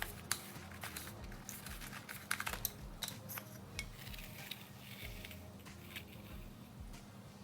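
Tools and parts being handled during an engine oil change: scattered light metallic clicks and clinks, with a quick run of them about two and a half seconds in, over a faint steady hum.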